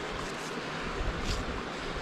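Wind buffeting the microphone over a steady rushing hiss, with a faint click just past a second in.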